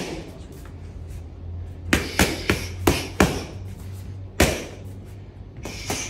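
Boxing gloves smacking into focus mitts during pad work: a quick combination of about five punches starting two seconds in, then a single hard punch, then two more close together near the end.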